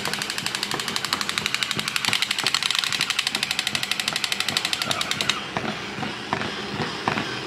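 Battery-powered crawling soldier toys playing their electronic machine-gun sound effect: a rapid, evenly spaced rattle of shots that stops about five seconds in, leaving softer, irregular clicking from the crawling toys.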